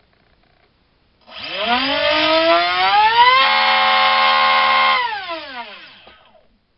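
4000kv brushless helicopter motor (TRex 450 size) driving a 4.5×4.5 TGS propeller on a 3-cell battery: a whine that rises in pitch as it spins up a little over a second in, holds steady for about a second and a half, then falls in pitch as it winds down. The tester suspects the prop is not quite balanced.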